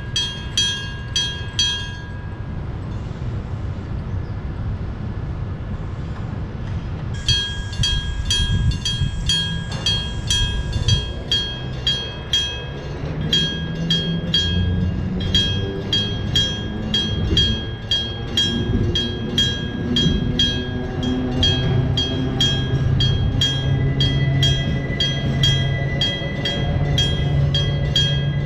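Electric-bell (denshō-type) railway level-crossing bell ringing at about three strikes a second over the low rumble of a train. The bell falls silent about two seconds in and starts again about five seconds later. From about twelve seconds in, the growl of the train's nose-suspended (tsurikake) traction motors rises in pitch and then holds steady.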